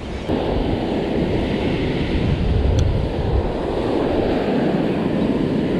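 Strong wind rumbling on the microphone over surf washing up the beach, steady throughout, with one faint click near the middle.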